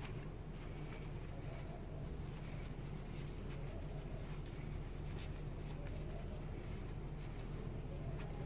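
Fabric rustling and a pencil scratching inside it as a sewn bow tie is turned right side out and its corners pushed out: faint, scattered scratchy ticks over a steady low hum.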